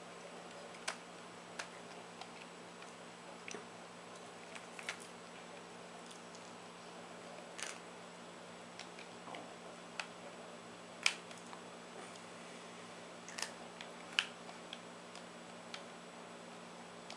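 A cat eating food that it pulls from its bowl: sparse, irregular small clicks and crunches, over a faint steady hum.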